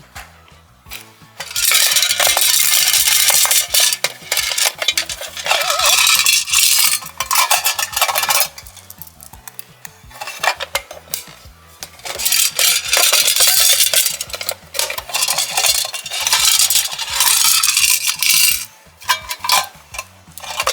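Slime being stirred and mixed in a container, loud crackly, clattering strokes in four long stretches with short pauses between them.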